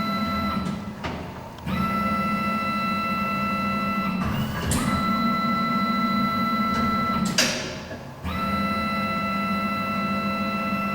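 Steady electric machine whine: a low hum with several high held tones. It cuts out for about a second near the start and again about seven and a half seconds in, with a brief rising rush, then starts again.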